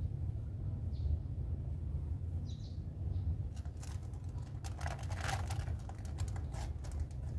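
Kittens suckling at their mother cat: a run of small wet clicks and smacks in the second half, thickest in the middle, over a steady low rumble. A few faint short high chirps come before the clicks.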